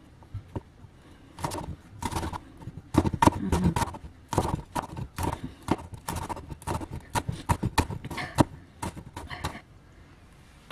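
Cleaver chopping green chillies on a wooden cutting board: a quick, uneven run of sharp knocks of the blade on the board, starting about a second and a half in and stopping shortly before the end.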